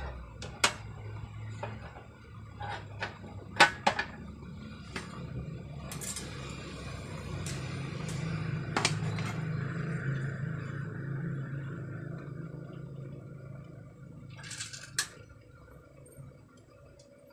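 Scattered clicks and light metallic knocks from hand tools and parts being handled in and around a sheet-metal electrical enclosure, with a low hum swelling through the middle.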